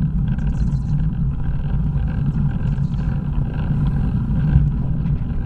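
Steady wind rumble on a bike-mounted camera's microphone as the bicycle rides along a wet road.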